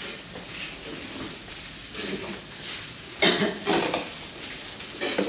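A few light clattering knocks, the loudest about three seconds in, over low indistinct household noise.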